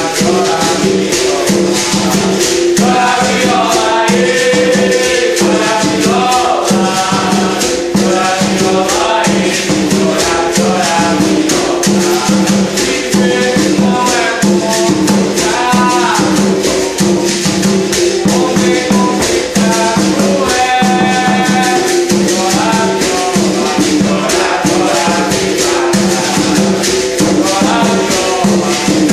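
Berimbau viola played in a steady repeating rhythm, its low twanging notes alternating between two pitches, with the constant rattle of a caxixi shaker and the beat of an atabaque hand drum. A melody moves above it.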